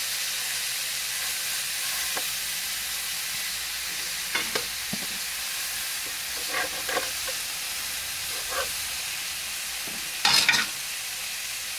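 Steaks sizzling steadily in butter in a hot electric skillet that has just been unplugged. A metal fork clicks a few times against the meat and pan, then makes one louder scrape about ten seconds in.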